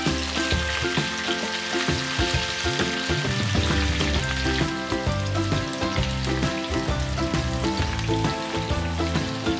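Sliced onion rings sizzling in oil in a frying pan, a steady hiss heard under background music with a plucked bass line.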